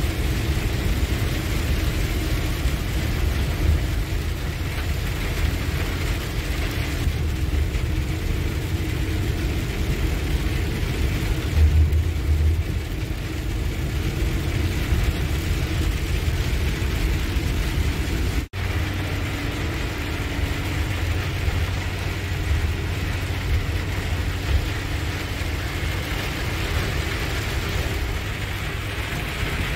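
A truck's engine and tyres on a wet highway, heard from inside the cab: a steady low drone with road hiss.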